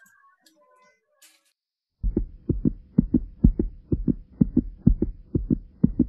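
Heartbeat sound effect: paired low thumps, lub-dub, about two beats a second, over a faint steady hum. It starts after about two seconds of near quiet and cuts off abruptly near the end.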